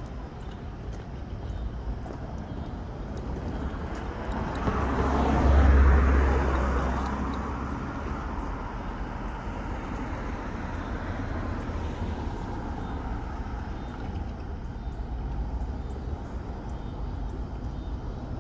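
Road traffic: a motor vehicle passes close by, swelling to a deep rumble about six seconds in and fading away, over a steady low hum of traffic.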